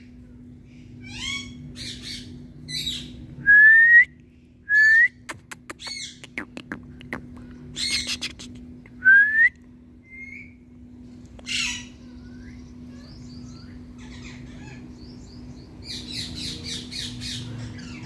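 Indian ringneck parakeet calling: several loud rising whistles and harsh squawks, with a run of short quick calls near the end. A cluster of clicks comes about five to seven seconds in, and a steady low hum runs underneath.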